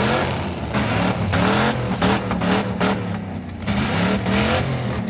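Demolition derby car engines revving hard, again and again, in short rising surges, with frequent short bursts of harsh noise.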